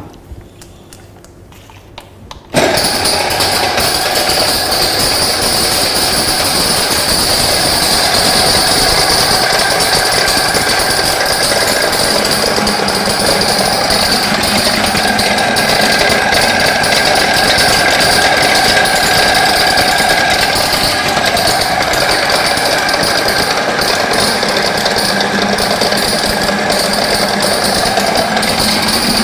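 Maksindo AGR-GRP 150 dry-and-wet grinding machine switched on about two and a half seconds in, then running loudly and steadily as it grinds soaked soybeans into a wet paste.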